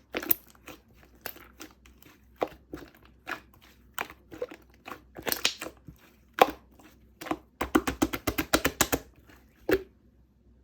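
Slime being squished and poked by hand, giving short sticky pops and crackly clicks as air pockets burst, with a fast run of pops about three-quarters of the way through.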